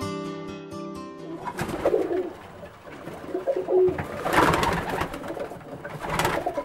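Acoustic guitar music that stops about a second and a half in. Then English tippler pigeons cooing in a small wooden loft, with loud bursts of wing flapping twice, about four and six seconds in.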